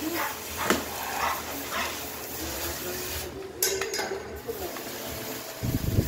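Scissors cutting into the plastic wrap on a cardboard parcel, with a few short squeaky snips in the first two seconds and a sharp click a little past the middle. Low rumbling handling noise near the end.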